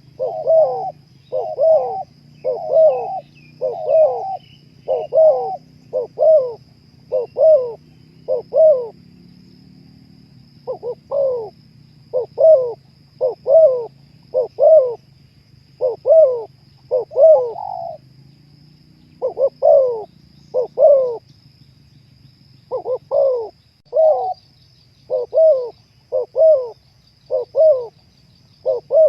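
Spotted dove (terkukur) cooing: a long run of short, evenly spaced coos, about one to two a second, with a few brief pauses.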